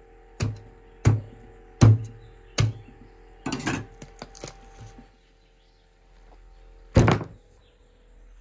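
Kitchen knife chopping through a raw turkey onto a wooden cutting board: four heavy thuds about every 0.7 s, a quicker run of lighter cuts, then one more heavy chop near the end.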